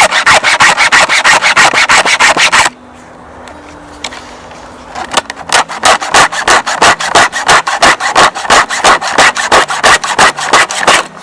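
A Stihl chain sharpener filing a chainsaw chain by hand: rapid, even rasping file strokes across the cutters and rakers. The strokes pause for about two seconds near the three-second mark, then start again.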